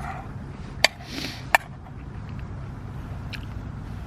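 Two sharp clinks of a metal utensil against a metal cooking pot, about a second in and again half a second later, over a steady low hum.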